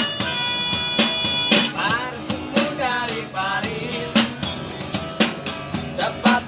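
Street busker singing in a wavering voice over music with a regular drum beat. The voice comes in about two seconds in, after a held reedy tone.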